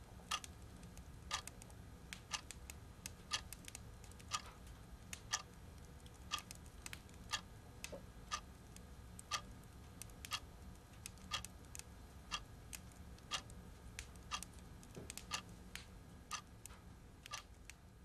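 A clock ticking steadily, about two ticks a second with every other tick louder, over a faint low room hum.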